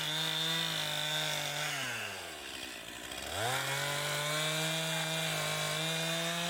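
Gas chainsaw run at full throttle cutting slab wood, dropping to idle about two seconds in, then throttled back up a second later for a few seconds more before easing off near the end.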